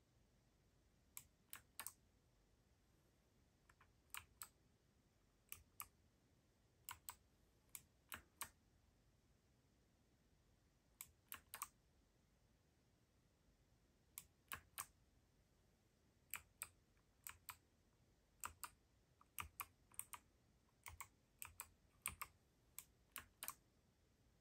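Keydous NJ80-AP wireless mechanical keyboard with Kailh BOX White switches, its keys pressed slowly one at a time. Sharp clicks come in twos and threes with pauses of a second or more, growing more frequent in the second half.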